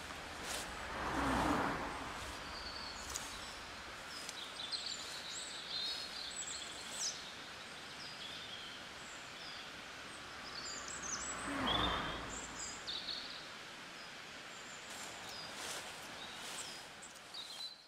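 Outdoor garden ambience: small birds chirping, with two soft swells of rustling noise, one about a second in and one about twelve seconds in.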